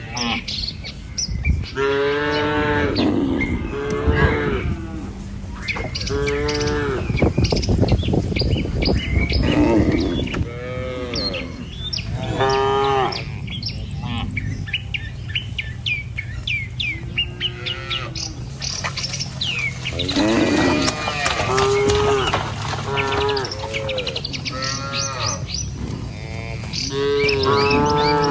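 A herd of village cattle mooing again and again, several animals calling one after another in calls that rise and fall in pitch.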